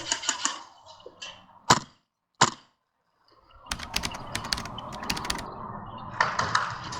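Airsoft guns firing: two single sharp cracks, then a rapid string of clicking shots at about eight a second.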